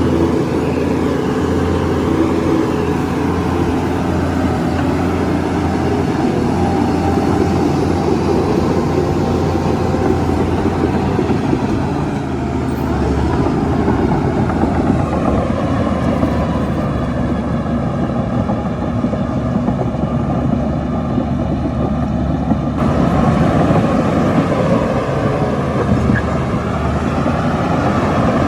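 Heavy diesel earthmoving machinery running steadily at work: a bulldozer engine with dump trucks. The sound shifts abruptly about four-fifths of the way through.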